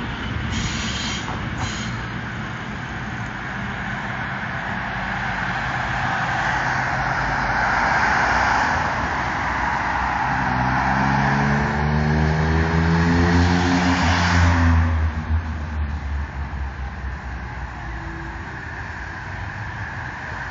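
ČD class 451 electric multiple unit arriving: the running noise of the train on the rails builds steadily. About halfway through, a whine falls in pitch for several seconds as the unit slows, then the sound drops away.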